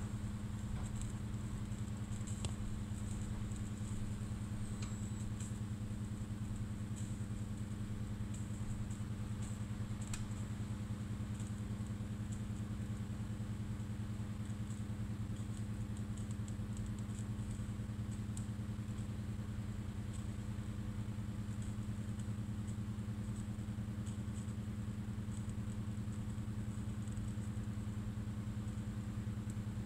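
Steady low mechanical hum, with faint crackling and ticking from eggs frying in a pan.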